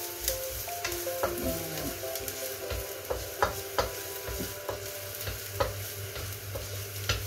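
Chopped garlic sizzling in oil in a wok while a wooden spatula stirs it, with scattered sharp taps and scrapes of the spatula against the pan.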